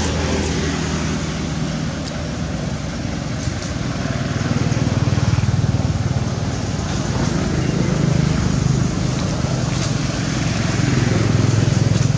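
A steady low engine drone that swells louder about four seconds in and again near the end.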